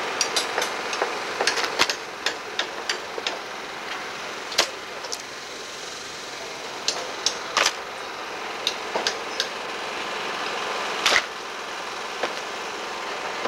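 Irregular sharp knocks and clacks of demolition work on a log house: hand tools striking and prying wood as boards and siding are pulled off. About twenty strikes come at uneven intervals over a steady hiss, with a few louder bangs near the middle and one before the end.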